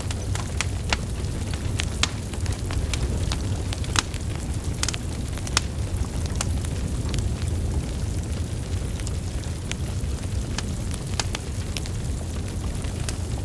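Wood logs burning in a fire, with frequent irregular crackles and sharp pops over a steady low rumble of flames.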